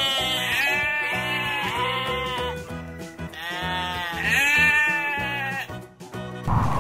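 Sheep bleating: two long, wavering bleats, one after the other, over background music.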